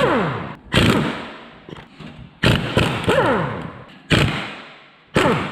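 Impact wrench with a 17 mm socket undoing nuts on an old differential casing. It runs in short bursts, about four times, each starting sharply and winding down in a falling whine.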